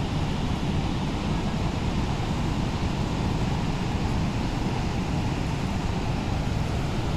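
Steady roar of Niagara's Horseshoe Falls: a huge volume of water pouring over the brink and crashing into the gorge, an even rushing noise weighted to the low end.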